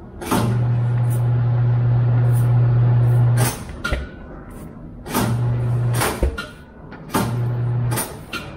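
Tire changing machine's turntable motor running with a steady electric hum in three spells, about three seconds and then twice briefly, with short squirts of a trigger spray bottle as soapy water goes on the tire bead.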